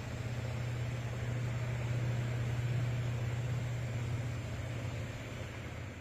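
Old-model ceiling fan running: a steady low hum with an even airy whir.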